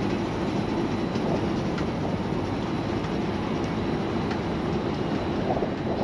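Steady low rumbling of a moving escalator, with no clear rhythm or strokes.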